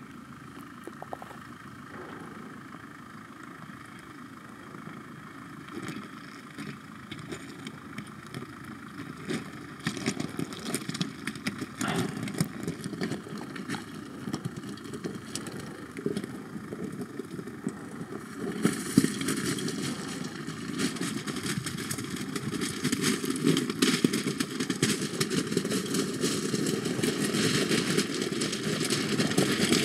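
Off-road 4x4's engine running at low speed as the vehicle crawls over a rocky track, with scattered knocks of stones under the tyres. It grows louder past the middle as the vehicle comes closer.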